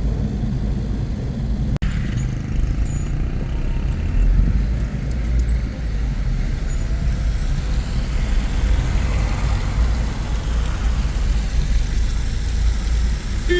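A car driving on the road: a steady low engine and road rumble, which drops out for an instant about two seconds in.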